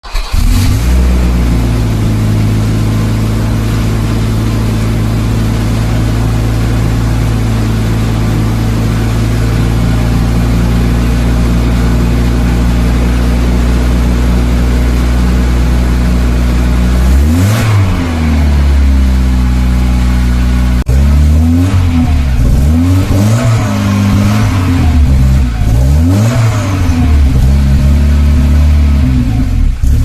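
Volvo 242 Turbo's B21ET turbocharged four-cylinder engine, heard through a 3-inch single-pipe stainless exhaust. It idles steadily, is revved once a little past halfway, then is blipped four times in quick succession near the end.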